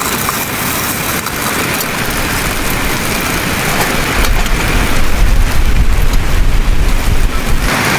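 Steady hiss of a winter storm outdoors. A heavy low rumble joins it about four seconds in and cuts off just before the end.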